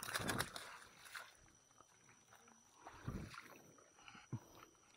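Rustling and brushing against twigs and branches, loudest in the first half second, then fainter, with a dull thump about three seconds in and a couple of small clicks.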